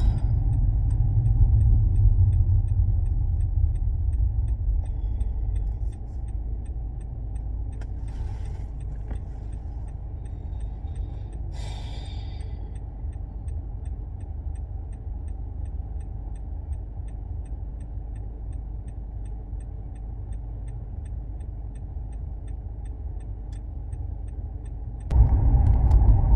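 Road and engine noise heard from inside a moving car: a steady low rumble that falls away about six seconds in, as the car slows, and picks up again near the end.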